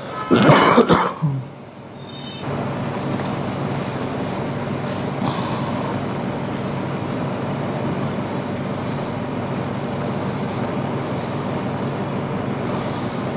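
A steady machine noise with a low hum starts abruptly about two and a half seconds in and runs on evenly. A brief hiss comes just before it, near the start.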